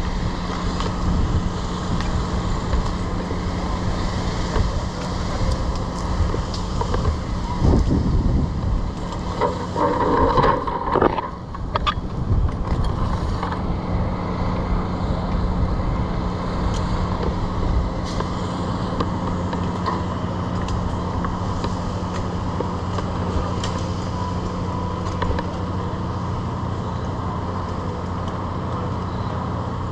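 An engine running steadily with a constant low hum, with a brief louder, irregular stretch about eight to eleven seconds in.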